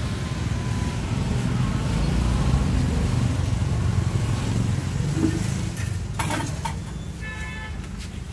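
A motor vehicle's engine rumbling as it passes close by, building over the first couple of seconds and fading after about five. A short clatter follows near six seconds, then a brief high-pitched tone near the end.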